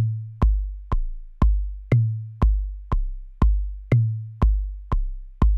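Looping kick drum pattern played by a Native Instruments Maschine MK3, about two kicks a second, each a sharp click with a low decaying tone. The kicks differ in pitch, one in every four clearly higher, because individual notes in the step pattern have had their pitch changed.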